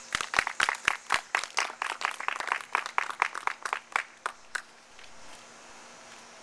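A small audience clapping, a run of distinct sharp claps that thins out and stops about four and a half seconds in.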